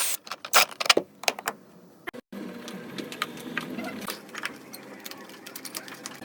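Light metallic clicks and clinks from handling, several in the first second and a half. After a brief dropout about two seconds in, a steady low hum follows, with scattered small clicks.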